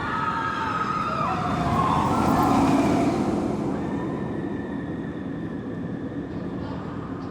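Amusement-park ride cars rushing past on their track: a swelling rush with several whining tones that slide down in pitch as they pass. It is loudest about three seconds in, then fades away.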